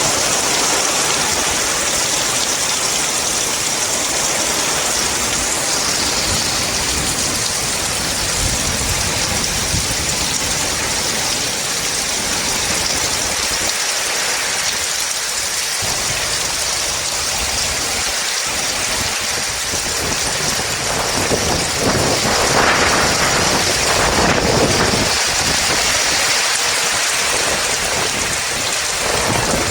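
Heavy rain falling in a strong, gusting wind, a steady hiss with low rumbles from the gusts. It swells louder for a few seconds past two-thirds of the way through.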